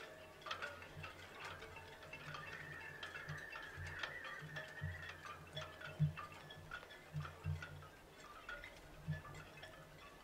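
Quiet background music of scattered, light chiming notes over a soft, irregular low pulse.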